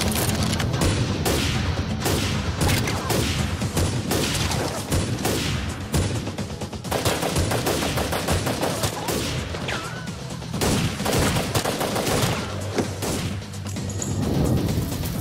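Gunfight: many guns firing in quick succession, a dense volley of shots that thins a little past the middle and picks up again near the end.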